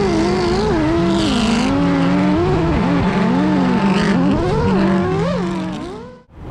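Drift car engine revving, its pitch swinging up and down as it slides, with short bursts of tyre squeal. The sound fades out near the end.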